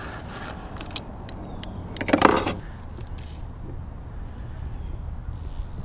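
Fishing gear being handled in a plastic kayak: scattered light clicks and knocks, then one loud rustling scrape about two seconds in, as the fly rod is taken out of its cloth sleeve and readied to cast, over a low steady rumble.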